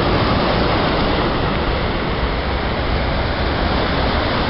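Sea surf washing up a sandy beach, mixed with wind buffeting the microphone: a loud, steady rush.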